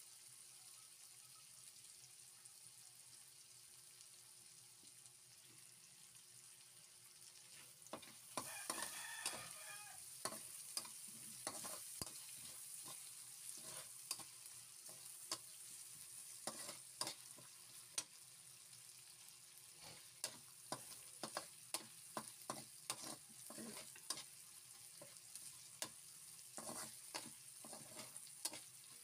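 Chopped onion, garlic and tomato sizzling faintly in a metal wok. From about eight seconds in, a metal spatula scrapes and clacks against the wok many times as the mixture is stirred.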